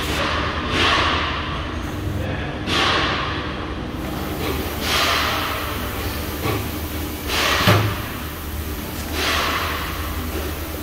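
Tire shop machinery at work, mounting a tire and spinning it on a wheel balancer: a steady low machine hum with short hissing swells about every two seconds, and a single thump about eight seconds in.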